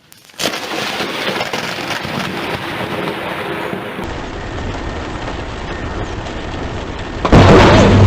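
Thunder breaks in suddenly about half a second in and runs on as a steady rush of storm noise and rain. About seven seconds in a much louder blast cuts in, the loudest moment.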